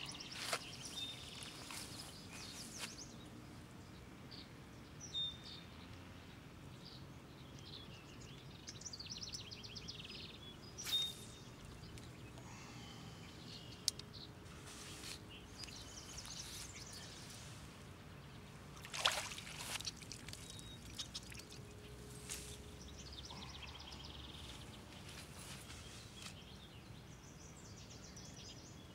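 Quiet outdoor background with birds calling now and then, broken by a few short knocks.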